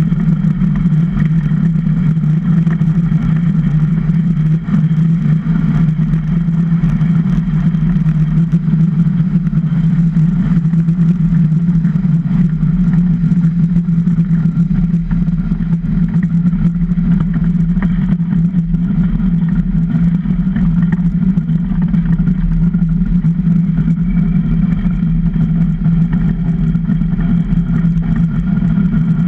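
Steel runners of a DN iceboat skating fast over clear lake ice, heard through the hull from a camera on the bow: a loud, steady low drone with a rushing hiss over it.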